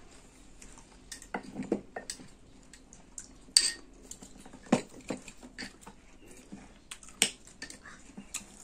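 A metal spoon clinking and scraping against glass bowls of cut fruit, in a scattered series of short, sharp clinks.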